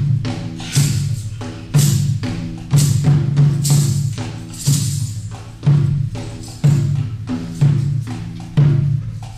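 Live drumming: a deep barrel drum on a stand, struck with a stick, keeps a steady heavy beat about once a second with lighter strokes in between, joined by a hand-held frame drum. A bright jingling rattle comes in on several of the beats.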